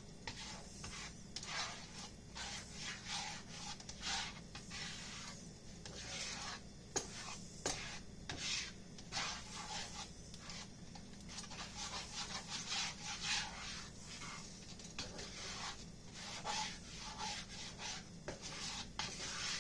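A cooking utensil scraping and stirring scrambling egg around a frying pan, in irregular repeated strokes with a few sharp clicks against the pan.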